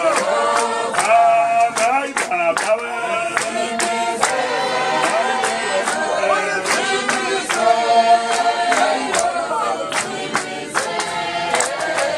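Church congregation singing together unaccompanied, keeping time with rhythmic hand-claps.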